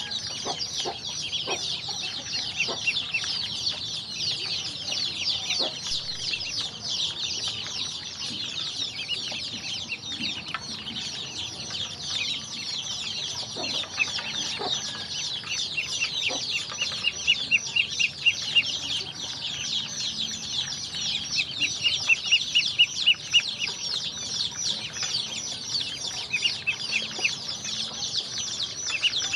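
A flock of Muscovy ducklings peeping constantly, many high calls overlapping, with louder quick runs of peeps in the second half.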